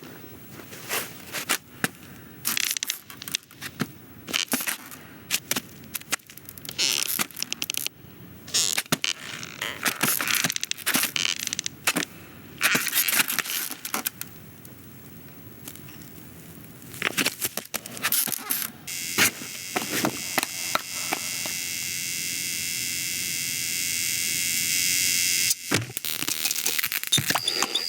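Animated-film sound effects: a busy run of small clicks, crackles and scrapes, then, about two-thirds of the way in, a steady hiss that grows louder, with a short high tone near the end.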